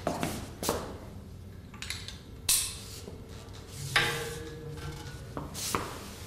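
Metal clicks and clanks of a Guldmann ceiling-hoist spreader bar being unhooked from its hanger and set down into a fabric storage bag: five or so separate sharp knocks, spread a second or more apart.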